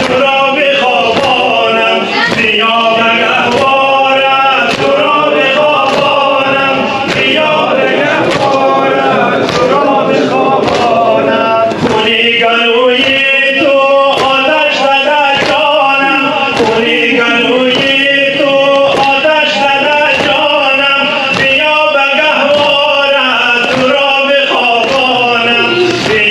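A group of men chanting a Persian noha mourning lament together, one melodic line, with long drawn-out notes. Regular chest-beating strokes (sineh-zani) keep time under the singing, a little faster than one a second.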